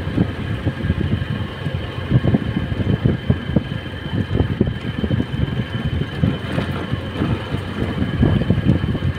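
Motorcycle engine running while riding along a road, with an irregular low rumble.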